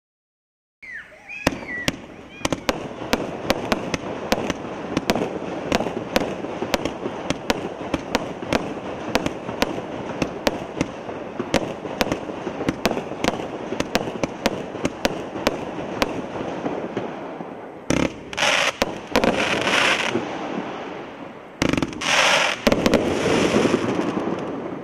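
A 57-shot 500-gram fireworks cake firing: a long run of sharp shots, about three a second, over a steady crackle of bursting stars. Near the end come two louder spells of dense crackling.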